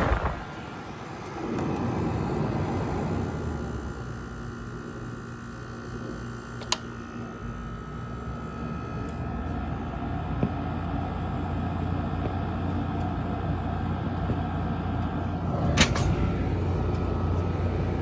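GE 5000 BTU window air conditioner running, a steady hum of compressor and fan with a faint whine above it, growing somewhat louder through the second half. Two sharp clicks, about a third of the way in and near the end.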